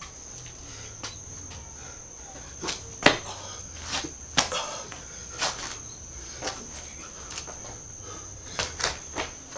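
Steady high-pitched cricket chirring, broken by irregular sharp knocks and slaps as a man stamps and moves on a concrete yard. The loudest comes about three seconds in, another just after four seconds, and a quick cluster near the end.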